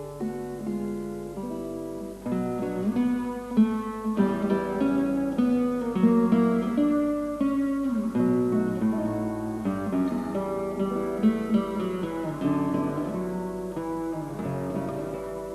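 Background music: acoustic guitar played with plucked notes and strums.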